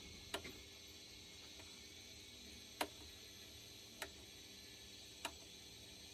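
Model railway turntable turning its bridge with a locomotive aboard: four sharp clicks at uneven intervals over a faint steady hum.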